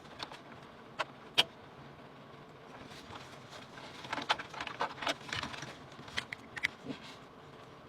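Small hard parts being handled while a PC is assembled: two sharp clicks about a second in, then a run of small clicks and rattles from about four to seven seconds.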